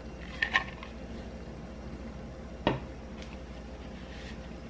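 A few light knocks of kitchenware, two close together about half a second in and one more near three seconds, over a steady low hum.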